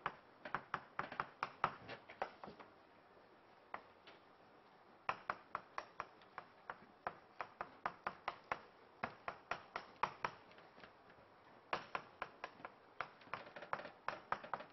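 Chalk clicking and tapping against a blackboard as equations are written, in quick runs of about four strokes a second broken by short pauses.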